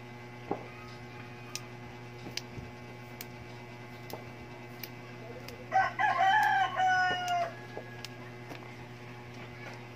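A rooster crows once, about six seconds in; the crow is a single call lasting under two seconds. A few faint clicks are scattered around it.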